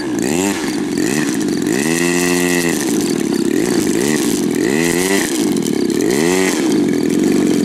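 Small single-cylinder two-stroke gasoline engine (RCGF 26cc) on an RC biplane, revved in a series of quick throttle blips, its pitch rising and falling. It holds a steady higher note about two seconds in.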